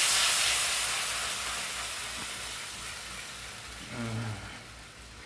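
Hot pan sizzling as cooking cream hits browned black peppercorns and butter. The sizzle is loudest at first and dies down steadily over a few seconds.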